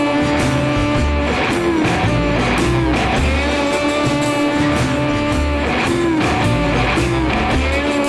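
Background rock music with electric guitar playing sustained, bending notes over a steady bass beat.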